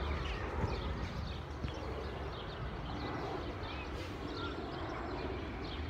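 Outdoor park ambience: many small birds chirping, over a steady low rumble of wind or handling on the phone's microphone.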